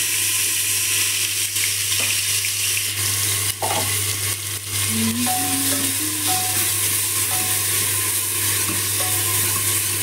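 Chopped onions and green chillies sizzling in hot mustard oil in a pressure cooker, stirred with a metal spoon that clicks and scrapes against the pot now and then. A steady low hum runs underneath.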